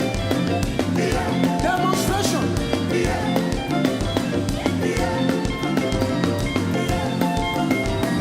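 Live band playing upbeat gospel praise music: a drum kit keeps a steady dance beat over a deep, bouncing bass line, with held instrumental notes on top.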